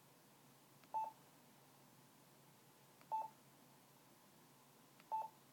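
Yaesu FTM-350 transceiver's key beep: three short beeps about two seconds apart, each just after a faint click of a panel button, as the radio steps from band to band.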